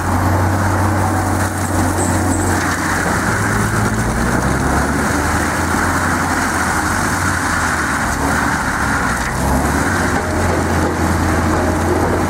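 A heavy engine running steadily under load, its pitch shifting slightly a few times.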